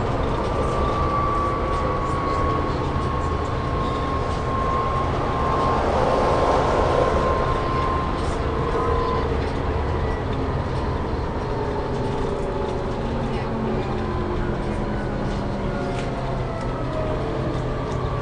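Volvo B7TL double-decker bus running, heard from on board: a low engine rumble under a high groaning whine that slowly falls in pitch over several seconds, with more falling whines later on.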